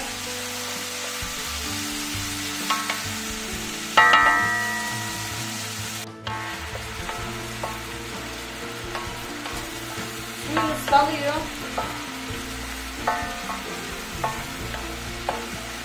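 Cubes of beef sizzling in a granite-coated sac pan over a high gas flame, stirred and scraped with a wooden spatula as the meat fries in the juices it has released. A sharp ringing knock sounds about four seconds in.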